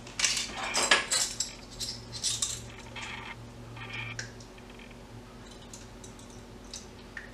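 Metal spoon clinking and scraping against a small metal mixing bowl as applesauce is spooned in, a quick run of light clinks in the first couple of seconds, then a few fainter ones.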